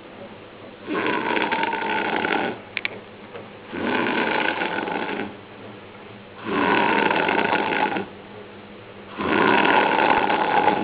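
A person snoring heavily: four long snores, each about a second and a half, coming regularly every two and a half seconds or so.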